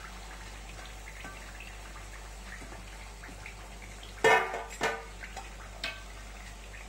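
Thattu vadai deep-frying in hot oil in a kadai: a steady sizzle and bubbling. Two sharp knocks come a little past four seconds in, half a second apart.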